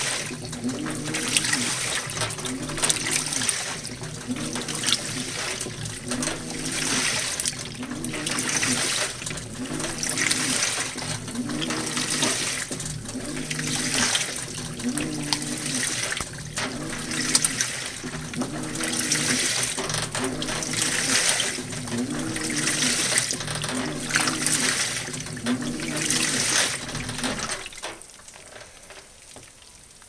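2012 LG top-load washer agitating a heavy-duty wash of towels and socks: the motor's whine rises and falls about every two seconds as the wash plate swings the load back and forth, with water and wet laundry sloshing. The agitation stops about two and a half seconds before the end.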